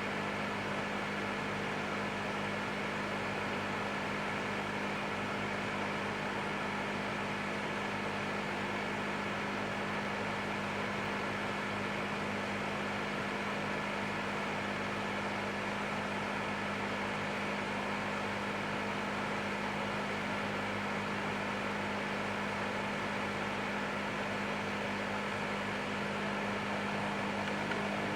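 Electric fan heater running steadily: an even rush of blown air with a steady low motor hum and a faint high whine.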